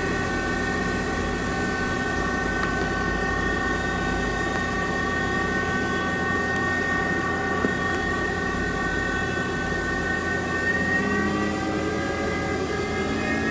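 Haas TM-2P vertical CNC machining center running, a steady mechanical whine of several tones over a low hum, rising a little in pitch near the end.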